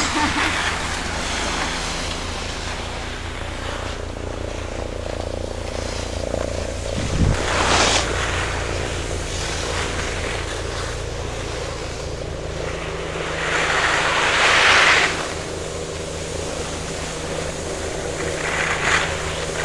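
Wind buffeting the microphone of a skier moving downhill, with skis hissing and scraping over packed snow, loudest in a swell about eight seconds in and a longer one around fourteen to fifteen seconds in. A faint steady hum runs underneath.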